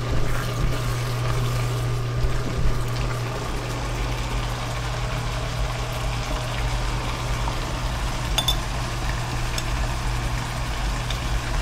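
Bok choy, shiitake mushrooms and tomato simmering in sauce in a wok, a steady sizzling bubble over a constant low hum. A silicone spatula stirs and taps the wok briefly at the start.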